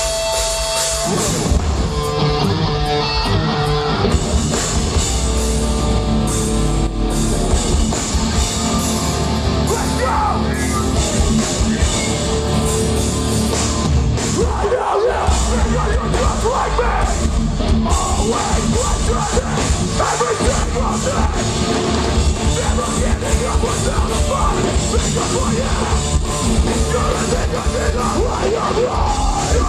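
Live hardcore band playing loud through a festival PA: distorted electric guitars, pounding drums and shouted vocals, with the full band crashing in about a second in.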